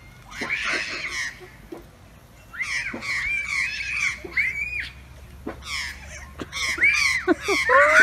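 A young child shrieking in short, high, rising-and-falling cries: a burst about half a second in, a longer run in the middle, and more near the end.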